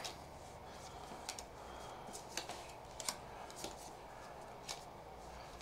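Magic: The Gathering trading cards being handled and sorted by hand: faint, irregular light clicks and taps as cards are flicked through and laid onto piles on a table.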